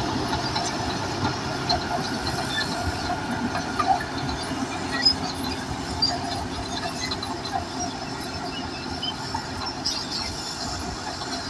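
Crawler bulldozer working, its engine running steadily under a dense clatter of steel tracks, with many small clanks and short high squeaks from the track links and rollers.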